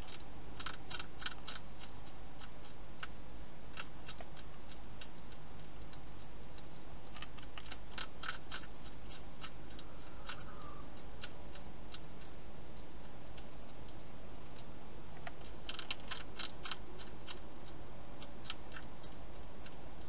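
Wild hedgehog crunching its food, in bursts of sharp rapid clicks every few seconds, over a steady low hum.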